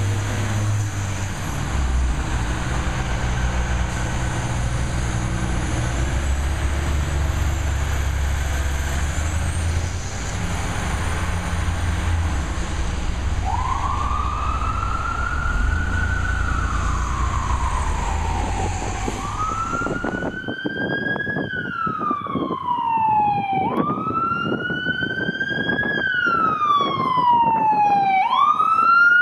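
Fire trucks responding: heavy diesel engine rumble close by under wailing sirens, with a strong siren wail rising and falling from about 13 s. About two-thirds in, the engine noise drops away and a single fire-truck siren wails on its own, each cycle a quick rise and a slower fall, about every three seconds.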